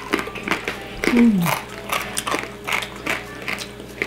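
Close-up chewing and crunching of crispy deep-fried pork (crispy pata), with wet mouth sounds at a steady chewing pace. A short falling hum about a second in.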